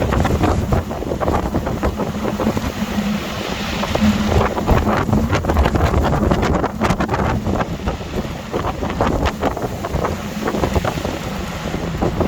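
Storm-force wind gusting hard, buffeting the microphone with a heavy, irregular rumble.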